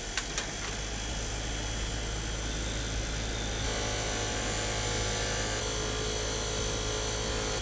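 Delta bench grinder running steadily with a Scotch-Brite abrasive disc, a small steel nut held by hand against the spinning disc to polish it. A couple of sharp ticks at the start, and a rougher grinding sound joins the steady motor hum about halfway through.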